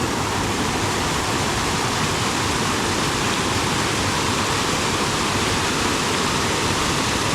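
Rushing water of a valley stream running steadily, a constant even roar.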